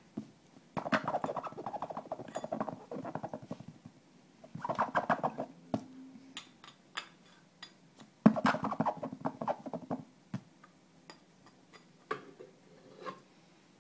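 A baby's voice: three bursts of rapid, buzzy pulsing sound a second or two long each, with short clicks in between.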